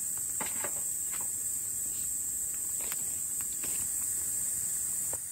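A steady high-pitched insect chorus, with a few scattered soft knocks, like footsteps, spread through it.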